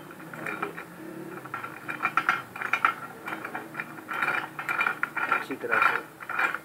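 Homemade steel drill vise's threaded lead screw being wound by its cross-bar handle: metal-on-metal scraping and clicking in repeated bursts as the screw turns in its nut.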